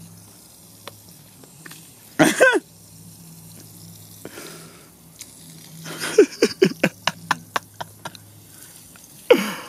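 Garden hose spraying water on a lawn, with loud short vocal outbursts over it: one cry about two seconds in, a run of about eight quick pulses falling in pitch and fading from about six to eight seconds, and one more near the end.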